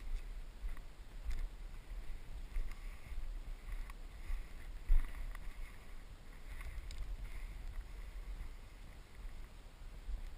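Low, muffled rumble of movement and wind buffeting a body-worn GoPro in its sealed housing, with a few faint knocks and one louder knock about five seconds in.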